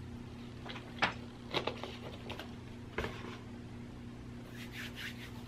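A person drinking from a plastic water bottle: a few soft gulps and clicks, then a light knock about three seconds in as the bottle goes down on the desk, over a steady low hum.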